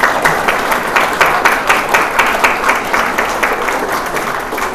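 Small indoor audience applauding, many hands clapping at once, strongest at first and easing off toward the end.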